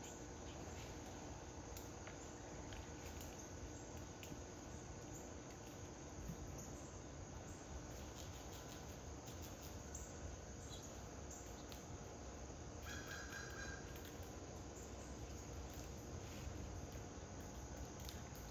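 Backyard ambience with insects chirring steadily. A short bird call comes about two-thirds of the way through.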